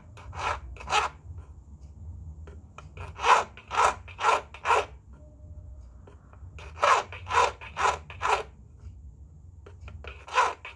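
A ring's metal surface being hand-filed with a needle file in short scraping strokes, about two a second, in groups of three or four with short pauses between. This is the surface finishing of the ring.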